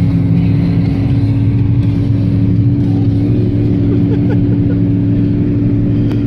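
A vehicle's engine running steadily at an even pitch while it pushes through deep snow.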